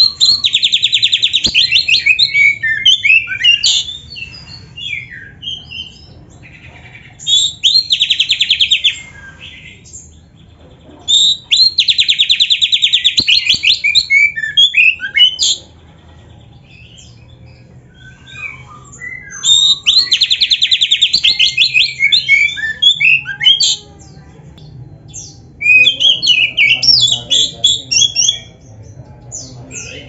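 Caged magpie-robin (kacer) singing five loud song bursts with pauses of a few seconds between them. Each burst opens with a fast rattling trill and runs on into a jumble of varied quick notes and slides, the rich 'full isian' song.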